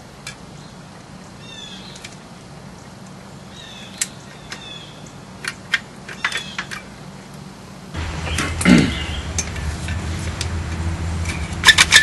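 Caulking gun worked by hand, its trigger and plunger rod giving scattered sharp clicks as sealant is pressed out around cans, with short bird chirps behind it. About two-thirds through, a louder steady low hum comes in, with a brief falling sweep just after it and a quick cluster of clicks near the end.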